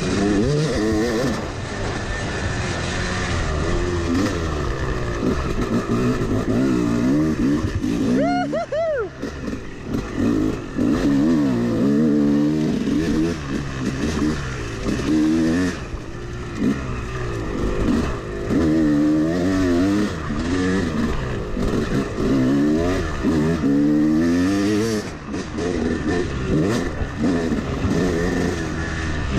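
Yamaha 250 two-stroke dirt bike engine revving up and down again and again as the throttle is worked while riding. There is one sharp rev spike about eight and a half seconds in.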